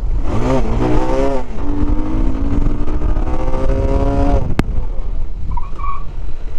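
Bajaj Pulsar 220 motorcycle's single-cylinder engine accelerating: its pitch climbs quickly, drops once as it shifts up, then rises slowly for a few seconds before the throttle closes, with wind rush on the microphone. A sharp click sounds just after the engine note drops away.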